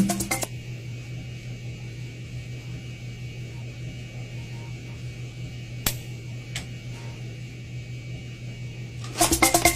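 Steady low hum and hiss of an airliner's cabin ventilation. Two sharp clicks come about six seconds in, half a second apart.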